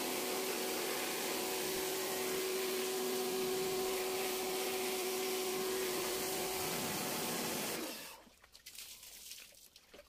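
Electric pressure washer running, its motor humming steadily under the hiss of the water jet spraying into a washing-machine tub; it stops about eight seconds in.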